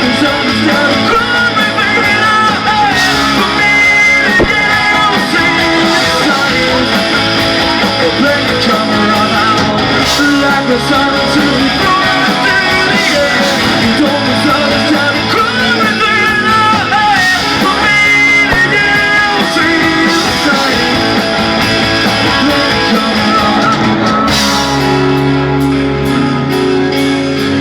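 Live rock band playing loudly, led by guitars. Near the end the high, busy part drops away, leaving held guitar chords ringing.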